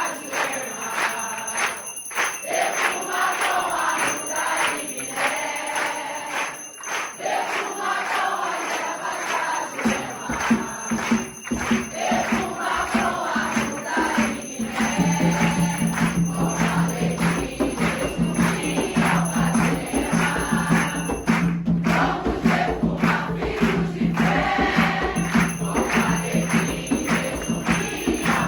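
Group singing over rhythmic percussion with a constant jingling shake. A deep drum pulse joins about ten seconds in.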